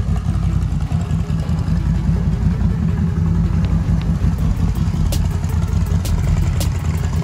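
Can-Am Renegade XMR 1000's Rotax V-twin idling steadily through an aftermarket exhaust, a deep, even rumble. A few light clicks come in near the end.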